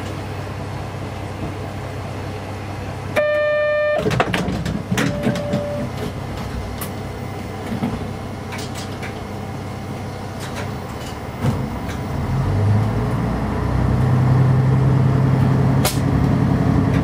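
KiHa 31 diesel railcar running along the line with its engine droning and wheels clicking over the rails. About three seconds in comes a short horn blast lasting under a second, then a brief second note. From about twelve seconds in the engine pulls harder and its drone grows louder.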